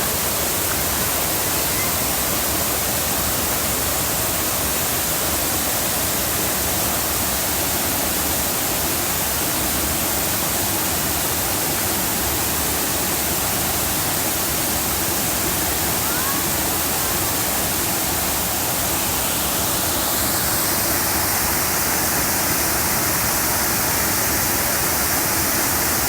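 Waterfall rushing: a loud, steady roar of falling water, its tone shifting slightly about twenty seconds in.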